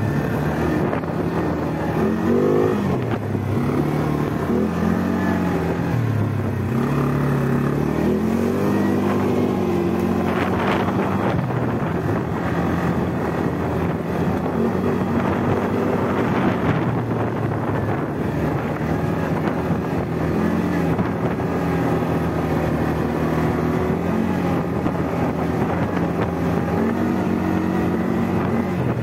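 ATV engine running under way on a dirt track, its pitch rising and falling as the throttle changes. There are a couple of brief rattles in the middle.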